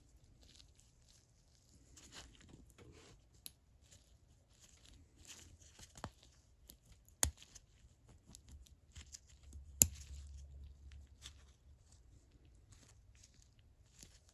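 Faint scratching and scraping of small metal ratchet parts as the reversing switch is worked and shimmied out of the flexhead ratchet's head, with a few sharp clicks, the loudest about ten seconds in.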